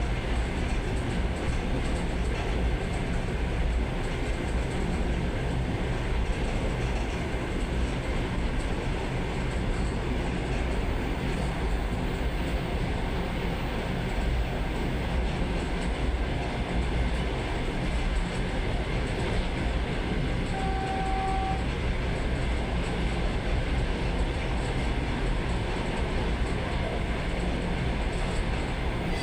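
Steady running noise of a suburban electric train, wheels rumbling on the rails, heard from inside the carriage. A brief high tone sounds for about a second roughly two-thirds of the way through.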